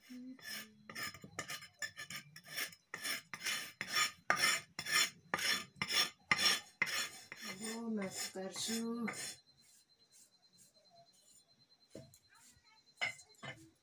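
Large steel knife blade scraped back and forth across a wooden chopping block in quick, even strokes, about two to three a second; the strokes stop about nine seconds in, followed by a few light knocks of the blade on the block.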